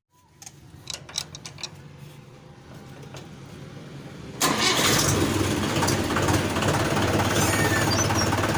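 A few clicks and rattles over a low hum, then about four seconds in the Mahindra 575 DI tractor's four-cylinder diesel engine is suddenly loud and runs steadily. This is the tractor being run to show a clutch noise that the mechanic puts down to the clutch rather than the gearbox.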